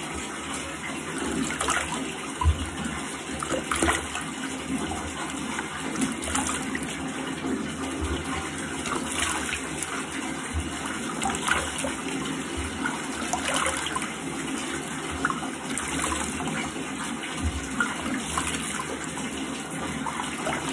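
Bathroom tap running steadily into the sink, with irregular splashes as a face is rinsed by hand under it, washing off a clay face mask with hot water.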